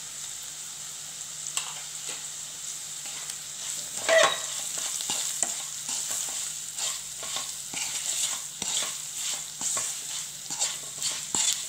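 Onions, curry leaves and dried chillies frying in oil in a nonstick kadai with a steady sizzle, while a wooden spatula stirs and scrapes through them. The scrapes come about two to three a second from about halfway through, with one sharper knock just before.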